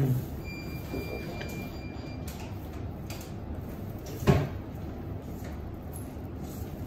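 A short thump at the start and a louder knock about four seconds in, over a steady low hum.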